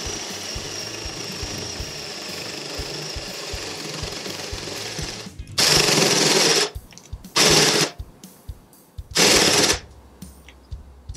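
Cordless drill with a 32 mm spade bit boring into a pallet-wood disc: a steady motor whine and cutting noise, then three short, loud bursts of drilling about a second each in the second half. The drill's battery is running flat.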